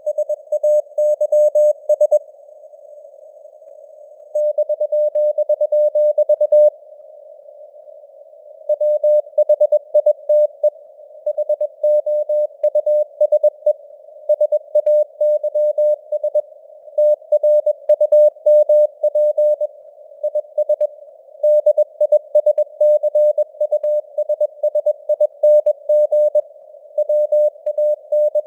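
Morse code (CW) at 21 words per minute: a single mid-pitched beep keyed in dots and dashes over a narrow band of simulated radio receiver hiss. The keying breaks off twice for about two seconds in the first nine seconds, leaving only the hiss.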